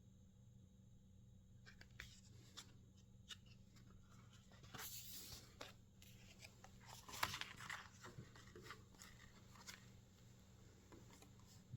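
Packaging of a table tennis rubber being handled and opened: scattered light clicks and rustles, with a longer rustle about five seconds in and a sharp crackle about seven seconds in.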